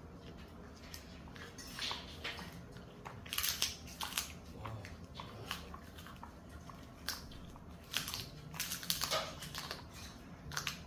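A dog crunching and chewing a dried duck-wing treat, irregular crackling bites through bone and skin, coming in quick clusters about three seconds in and again near eight to nine seconds.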